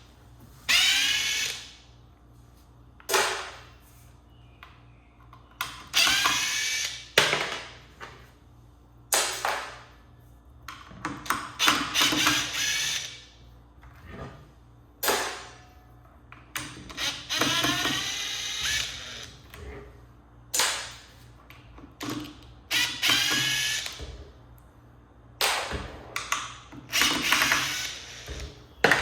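DeWalt impact driver run in about a dozen short bursts, each spinning up in a rising whine and winding down, as it backs screws out of a subwoofer cabinet, with brief clicks between the runs.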